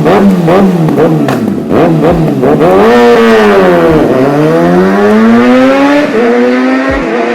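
Kawasaki ZX-6R inline-four sportbike engine revving: a quick run of short blips for the first couple of seconds, then longer pulls up through the revs, with the pitch dropping sharply about four seconds in and again near the end.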